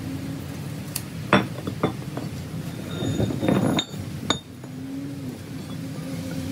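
A handful of sharp metallic clinks and knocks, bunched in the first half, as the broken pieces of a steel axle shaft are handled and knocked against each other and the concrete floor, over a steady low hum.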